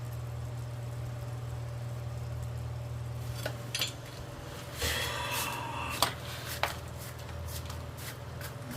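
Metallic clinks and knocks, like tools or metal parts striking each other, over a steady low machine hum; one short ringing scrape comes about five seconds in and the sharpest knock a second later.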